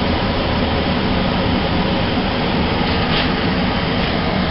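The blower of a newly installed heat pump's air handler running: a steady rush of air over a low hum.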